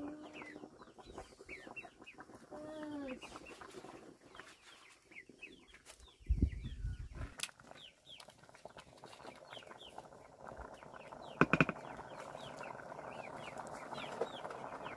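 Chickens clucking, with many short high chirps throughout. A low thud comes about six seconds in and a louder sharp burst at about eleven and a half seconds.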